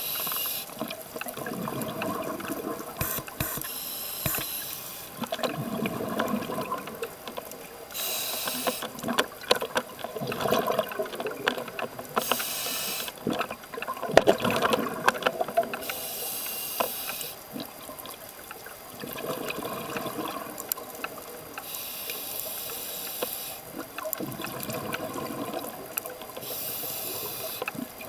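A scuba diver breathing through a regulator: a hiss on each inhale every four to five seconds, then a spell of bubbling as the exhaled air vents.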